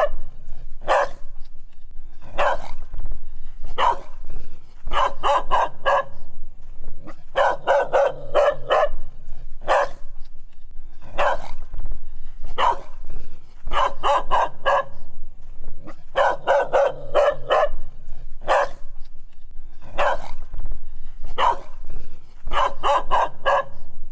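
A dog barking over and over, in single barks alternating with quick runs of four to six barks.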